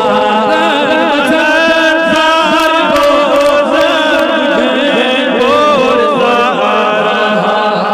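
Male voice chanting a Kashmiri naat, a devotional song in praise of the Prophet Muhammad, drawing out long wavering held notes without a break.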